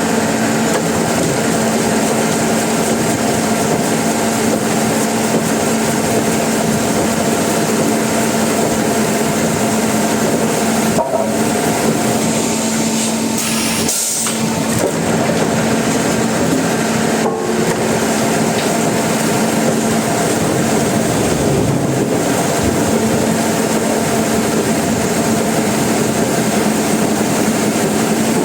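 Sawmill machinery running continuously: a loud, steady mechanical noise with a constant hum, broken by a few brief dips.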